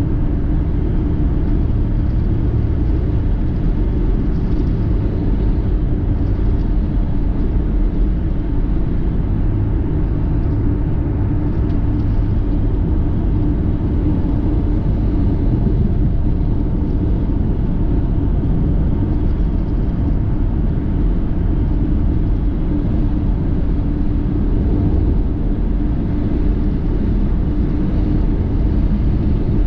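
A car driving: a steady low rumble with a faint steady hum above it.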